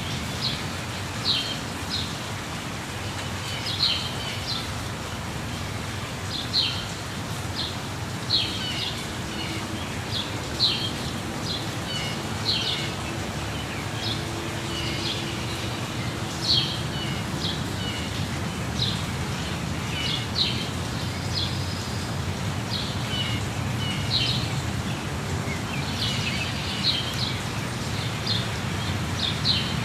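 Steady rush of a waterfall with small birds chirping over it, short calls repeating every second or so.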